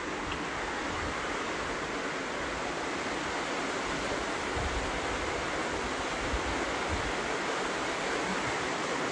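Steady outdoor rushing noise with irregular low rumbles of wind buffeting the microphone.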